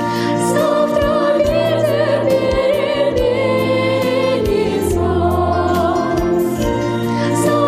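A girl's solo voice singing a melody with vibrato over a backing track with a steady bass line and a beat.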